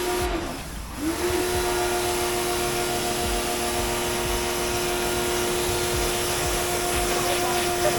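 Dylect 1900 W electric pressure washer's motor and pump running with the spray hissing. It stops briefly just after the start as the trigger is let go, comes back about a second in, and then runs steadily.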